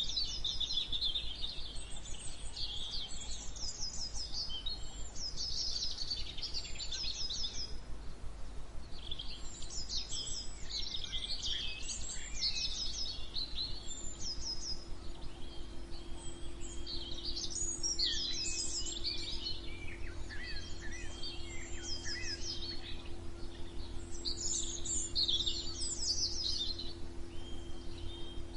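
Several songbirds singing and chirping at once, with many quick repeated-note phrases overlapping, over a steady low background rumble.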